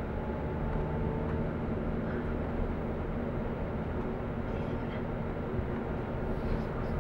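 Steady engine hum and tyre noise heard from inside a moving vehicle's cabin while it cruises at an even speed.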